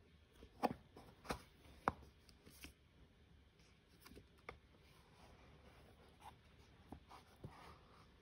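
Handling noises from unboxing a watch: a few sharp clicks and taps from the box, its card wallet and the watch, the three loudest within the first two seconds, over soft rubbing of card and cardboard.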